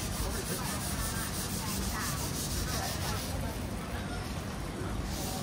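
Busy street-market ambience: indistinct chatter of passers-by over a steady rumbling noise bed, with an even, rhythmic scuffing throughout.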